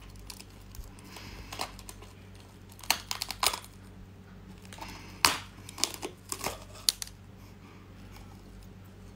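Teeth biting and cracking into a spiny sea urchin's shell: scattered sharp crunches and cracks, bunched about three seconds in and again between five and seven seconds.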